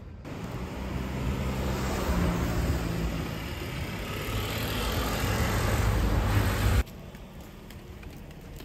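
A road vehicle passing close by: engine rumble and tyre noise swell over several seconds, then cut off abruptly about seven seconds in.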